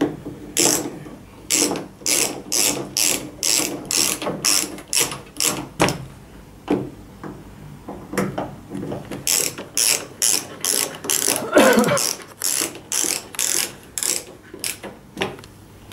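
Hand screwdriver driving screws into a TV's plastic back cover, clicking about twice a second as it is turned back and forth, in two runs with a pause between them. A short falling creak comes about three-quarters of the way in.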